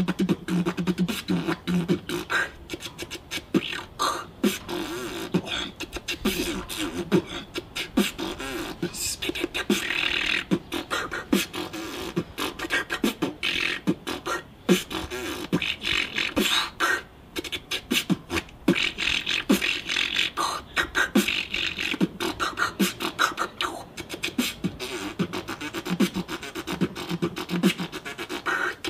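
Beatboxing: a fast, unbroken stream of vocal percussion, sharp clicks and hissy snare sounds over a low hummed bass line.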